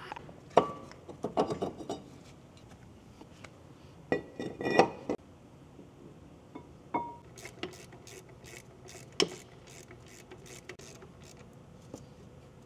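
Metal clinks and clicks from a Brembo brake caliper and its hardware being handled and fitted over a slotted brake rotor, with a few short ringing knocks, the loudest about five seconds in, then a run of small quick clicks.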